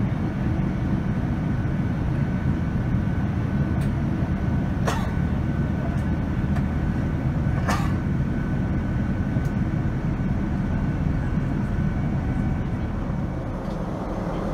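Cabin noise of a Boeing 787-9 in its climb, heard from a window seat beside its Rolls-Royce Trent 1000 engine: a steady low rumble of engine and airflow with a faint held whine. Two short sharp clicks sound about five and eight seconds in, and the noise dips slightly near the end.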